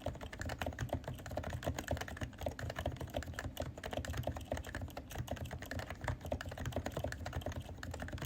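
Continuous typing on a stock Realforce 108UH-S keyboard with Topre electrostatic capacitive switches: an unbroken run of keystrokes, several a second.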